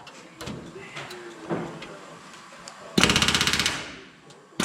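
Pneumatic rivet gun driving an aluminum rivet in a short burst of rapid hammering, about three seconds in, with a second burst starting right at the end. Faint knocks and handling sounds in between.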